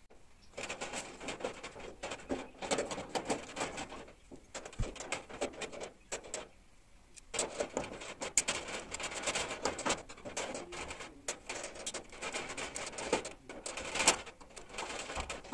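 Screwdriver turning and scraping in the screws of a steel almirah's door lock, with clicks and rattles of the metal lock being worked loose and handled, in several bouts broken by short pauses.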